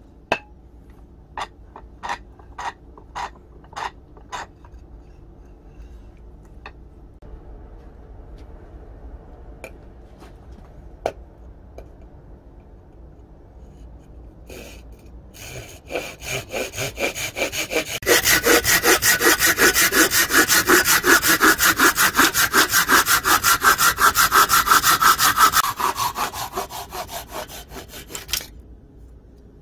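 A thin-bladed hand saw cuts across a wooden handle blank clamped in a vise, in rapid back-and-forth strokes. The strokes start about halfway through, run loud and fast for several seconds, and taper off as the cut finishes near the end. A few sharp clicks come in the first few seconds.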